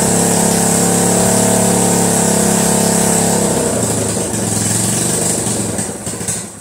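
1976 Honda CB360's air-cooled parallel-twin engine running on its first start-up; a little past halfway the revs drop to a lower, uneven idle, then the engine stumbles and dies near the end.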